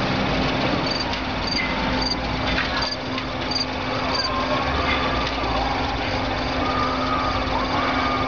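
Electric streetcar running away along the track, with a steady low hum over rolling noise. Faint wavering squeals come in during the second half.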